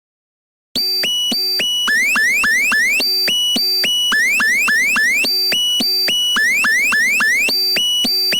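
Electronic emergency-alert tone starting just under a second in: a few short steady beeps followed by four quick rising chirps, the pattern repeating about every two and a half seconds.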